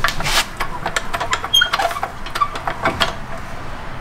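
Hydraulic floor jack being worked under a car's rear suspension arm: an irregular run of clicks and knocks with one short squeak about one and a half seconds in, as the arm is raised to compress the new coil spring.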